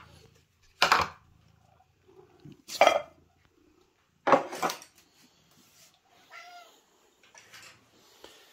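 Hungry house cats meowing while metal and ceramic food bowls clink as they are set down and moved. There are a few loud, short sounds in the first five seconds, then a fainter meow.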